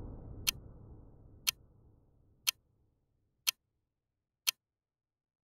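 Countdown-timer tick sound effect: one short, sharp clock tick each second, six in all, marking the final seconds of an exercise interval. A soft background track fades out in the first two seconds.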